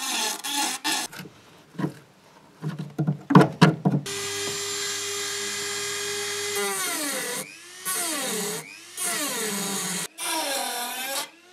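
Handheld electric rotary tool with a small wire-brush wheel cleaning rust and old repair traces off car floor sheet metal. A few loud knocks sound about three seconds in. The motor then runs steadily, and in several short runs its pitch dips and recovers as the brush is pressed into the metal.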